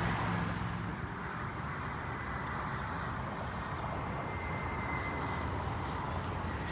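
Steady outdoor traffic and vehicle noise, an even rumble and hiss with no distinct events.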